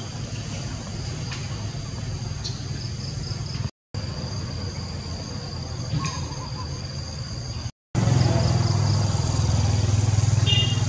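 Steady low background rumble with a faint, steady high-pitched whine, cut by two brief dead silences. The rumble is louder after the second silence, and a short high chirp comes near the end.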